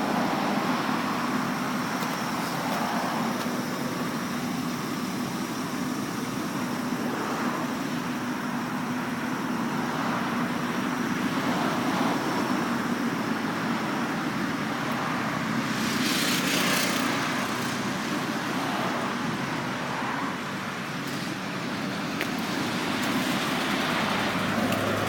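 Steady road traffic noise: a continuous low hum under a constant hiss, with a brief louder hiss about two-thirds of the way through.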